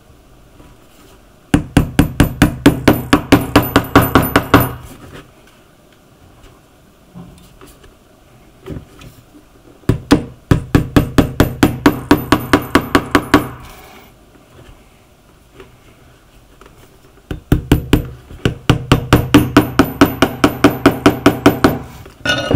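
A hammer tapping rapidly on a shoe being resoled, about six light strikes a second, in three runs of a few seconds each with a faint metallic ring.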